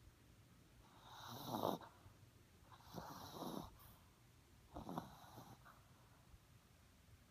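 Small dog snoring in its sleep: three slow snoring breaths about two seconds apart, the first the loudest.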